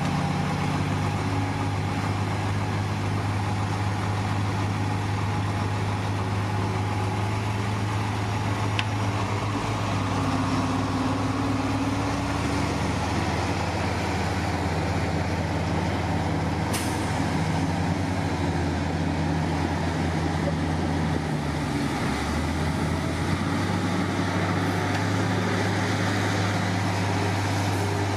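Heavy diesel engine of earthmoving machinery running steadily under load, its note shifting a couple of times, with a sharp click about seventeen seconds in.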